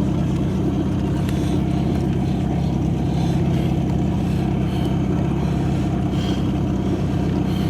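Boat engine running steadily, a continuous low hum that holds an even pitch and level throughout.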